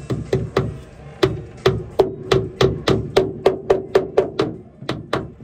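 Hammer blows struck in a steady run of about three a second, each with a short ring. A few scattered taps come first, then a quick run of about a dozen blows, and after a short pause two more near the end.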